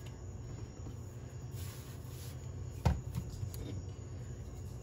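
A wooden rolling pin working shortcrust pastry dough on a floured countertop: a brief soft swish near the middle and one sharp knock about three seconds in. A steady low hum runs underneath.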